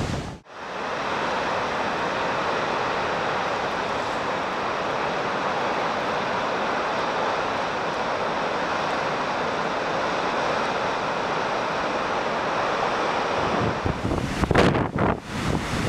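Storm surf churning over rocks: a steady, even rush of white water. Near the end it gives way to gusty wind buffeting the microphone.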